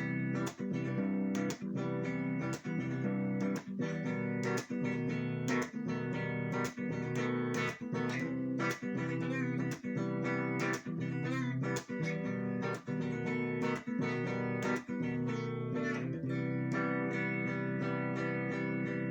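Guitar strummed in chords, a stroke about once a second. Near the end the chords are left ringing with fewer strokes.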